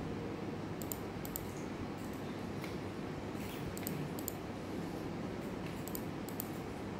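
Steady room hum with faint, sharp computer mouse clicks, often in pairs, every second or so.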